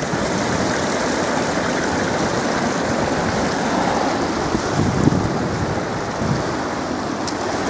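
River water rushing through the open gates of a hydro dam: a steady, even roar of high, fast-flowing water.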